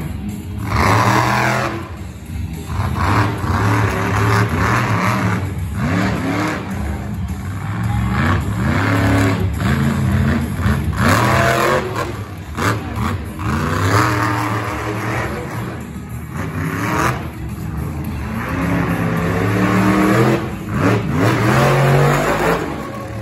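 Monster truck engine revving hard, rising and falling in pitch again and again as the truck accelerates into jumps and backs off.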